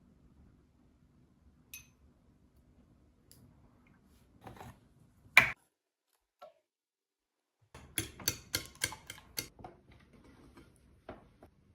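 One sharp knock about halfway through, then a quick run of about eight clicks or taps over a second and a half, with a few fainter taps after.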